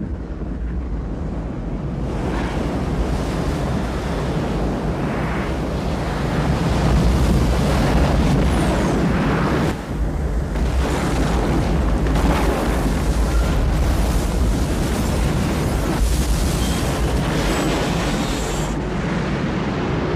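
Film sound effects of a meteor-driven giant tidal wave: a loud, continuous rush of water and wind over a deep rumble, with a brief drop about ten seconds in.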